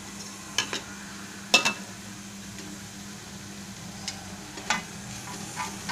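Steel spatula stirring and scraping thick masala paste in a metal pot, with a few sharp clinks against the pot (the loudest about one and a half seconds in) over a faint steady sizzle of the paste frying.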